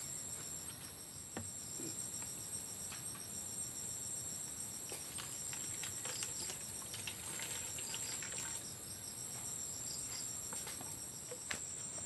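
Steady high-pitched insect chorus with a fast, evenly pulsing chirp. Over it come small knocks and light splashes of water being poured into a plastic jug, busiest in the middle.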